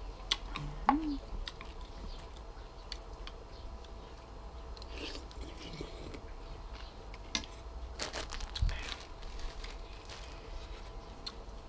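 A person eating soup: chewing, with sharp clicks of chopsticks and a spoon against the ceramic bowl, the loudest about a second in. A short rustling burst comes near eight seconds in.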